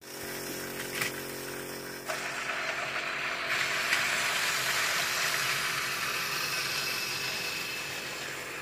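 Battery-powered TOMY Trackmaster toy trains running on plastic track: a steady motor whir under the rattle of wheels and trucks on the track. There is a click about a second in, and the rattle grows louder from about two seconds in.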